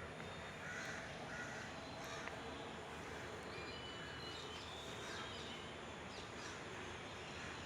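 Forest birds calling over a steady faint hiss: two short harsh calls about a second in, then thin whistled notes in the middle.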